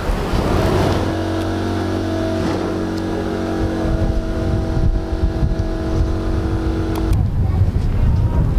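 A vehicle engine running at a steady pitch, a low hum with several held tones over street noise. It cuts off abruptly about seven seconds in, leaving only the street noise.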